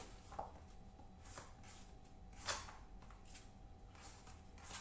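Kitchen knife slicing Chinese broccoli on a cutting board: several faint, irregular knocks of the blade, the loudest about halfway through.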